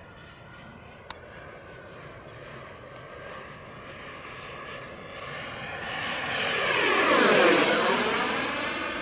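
Electric ducted-fan whine of an E-flite F/A-18D radio-controlled jet making a low pass: it builds steadily, is loudest about seven and a half seconds in, then drops in pitch as it goes by and starts to fade.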